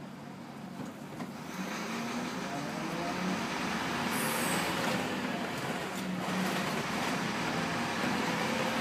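Leyland National Mark 1 bus's Leyland 510 straight-six diesel, heard from inside the saloon, quiet at first and then pulling hard about a second and a half in, its note rising. A short hiss of air comes about four seconds in, and the engine note breaks briefly about six seconds in, a gear change, before climbing again.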